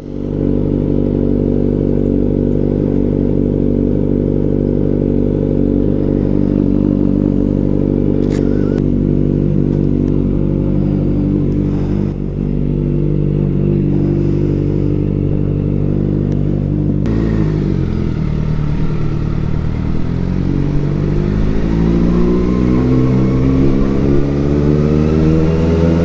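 Kawasaki Ninja ZX-4RR's inline-four engine through an SC Project CRT exhaust, running at a steady idle, then about two-thirds of the way through the revs start to climb and keep rising steadily to the end.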